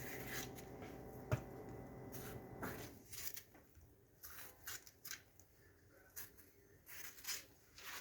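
Faint rustling and light clicks of hands handling ingredients on a kitchen counter, over a low steady hum that stops about three seconds in.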